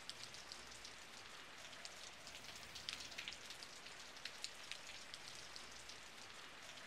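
Faint patter of light rain: scattered soft ticks over a low hiss.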